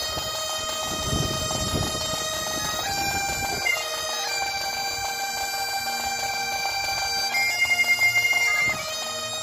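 Two Great Highland bagpipes playing a slow tune together, held melody notes changing every second or so over their steady drones, with a quick fluttering ornament near the end. A low rumble of wind on the microphone runs under the first two seconds.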